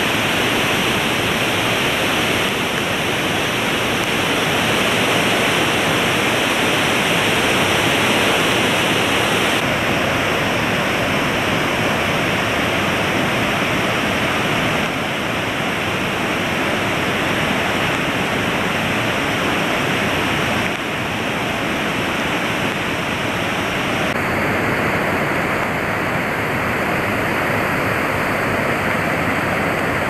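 Mountain river rushing and splashing over boulders in white-water cascades, a loud steady roar that shifts in tone a few times.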